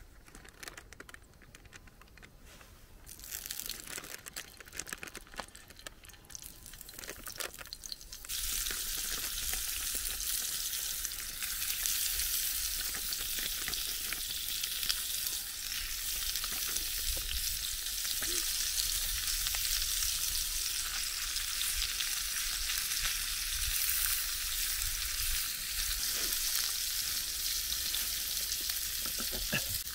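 Sausages sizzling in a small square frying pan over a campfire. The sizzle starts suddenly about eight seconds in, as they go into the hot pan, and then runs steadily.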